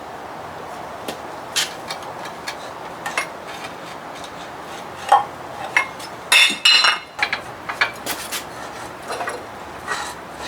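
Hand tools clinking and tapping against the metal parts of an outboard motor's lower unit, a scatter of light knocks with a burst of ringing metallic clinks about six seconds in.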